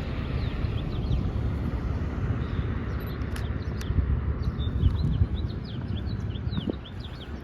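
Wind buffeting the microphone as a steady low rumble, with small birds chirping repeatedly over it, most busily in the second half.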